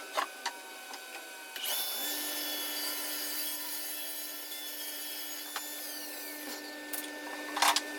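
Table saw running and ripping quarter-sawn white oak, played back fast. A steady motor hum is overlaid by cutting noise that swells about two seconds in and eases later, with a few short knocks, the loudest near the end.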